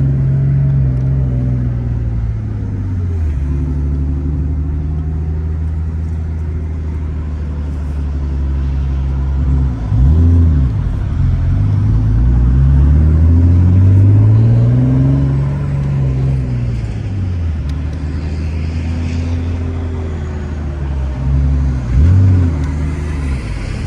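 Twin-turbocharged Infiniti G35 V6 engine running under load on a drive. The revs climb and fall repeatedly, with sharp drops about ten seconds in and again near the end, as at gear changes.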